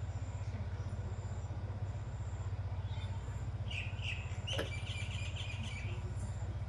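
A steady low hum runs throughout. A bird chirps several times between about four and six seconds in, and there is a single sharp click in the middle of the chirping.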